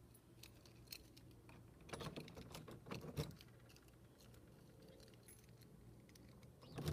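Near silence: faint scattered clicks and light rustling, clustered about two to three seconds in, over a low steady hum.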